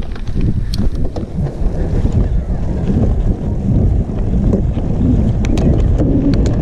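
Wind buffeting the camera microphone as a mountain bike rides down a dry dirt track, over a steady low rumble of tyres on loose gravel, with scattered sharp clicks and rattles from stones and the bike.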